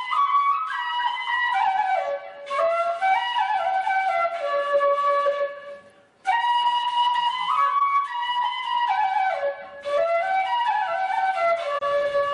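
Solo flute playing a short melody that steps down from a high note to a lower held note. The same phrase is played twice, with a brief break about six seconds in.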